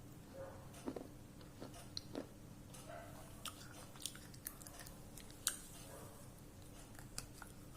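Close-up mouth sounds of someone biting and chewing something brittle, with scattered sharp crunches and clicks, the loudest about five and a half seconds in.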